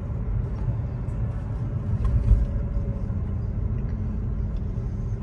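Steady low rumble of road and engine noise inside a moving Buick's cabin, with a brief louder thump a little over two seconds in.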